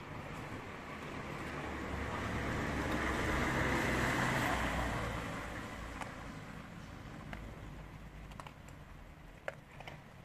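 A car passing on the street, rising to its loudest about four seconds in and then fading away. A few sharp clicks come through, the puppy crunching dry kibble.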